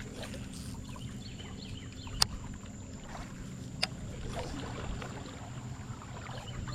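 A boat's small motor running with a steady low hum, with two sharp clicks about two and four seconds in.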